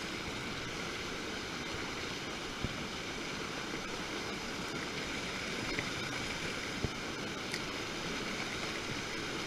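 River water rushing steadily, with a couple of faint knocks.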